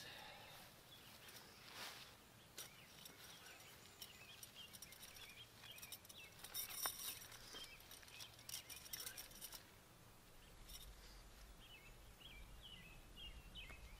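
Near silence: faint outdoor ambience, with scattered light clicks and rustles around the middle and a few short, high bird chirps near the end.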